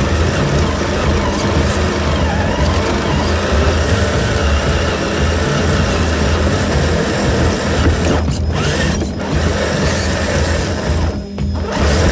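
Traxxas TRX-4 RC crawler's electric motor and geared drivetrain whirring and rattling as it crawls over rock and brush. Near the end it briefly drops out a few times, as if the throttle is eased.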